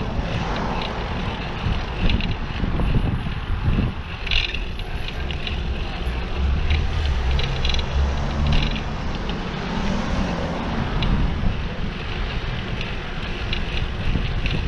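Ride-along sound of a bicycle on a cycle track: wind and road rumble on the microphone, with scattered light clicks and rattles from the bike. A motor vehicle's engine hum rises and fades as it passes in the middle.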